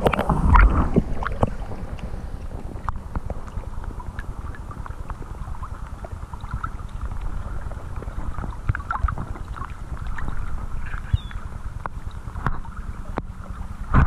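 Lake water splashing and sloshing as a largemouth bass is held in the water by its lower jaw, with wind noise on the microphone. A burst of heavier splashing comes in the first second and a half, then lighter splashes and drips.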